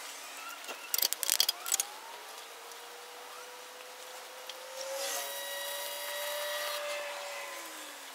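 Hand-cranked bead roller working a 3-inch steel exhaust tube: a quick rattle of metal clanks about a second in, then a long rubbing squeal with a slowly rising tone as the crank turns the tube through the rollers, loudest from about five seconds to near the end.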